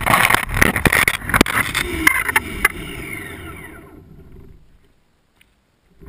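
An electric RC truck tumbling on asphalt: rough clatter with many sharp knocks. Then its motor whine falls in pitch and fades away as it spins down, leaving near silence. Loud noise starts again right at the end.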